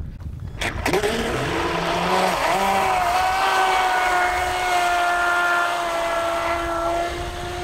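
Traxxas Spartan RC speedboat's Velineon brushless motor, running on a 4S LiPo pack, whining as the boat speeds across the water. The pitch rises over the first couple of seconds, then holds high and steady and eases slightly near the end, over a hiss of spray.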